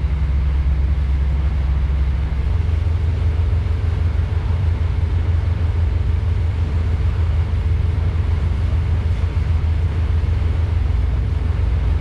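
Ilver 34 Thesi motor cruiser's engines running steadily under way, a deep drone with a rush of wind and water over it; the engine note shifts slightly about two and a half seconds in.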